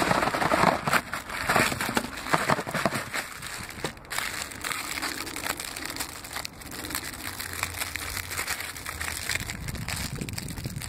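Clear plastic wrappers on individually wrapped Little Debbie Star Crunch cookies crinkling as the cookies are shaken out of their box and handled. The crinkling is busiest and loudest in the first four seconds, then lighter.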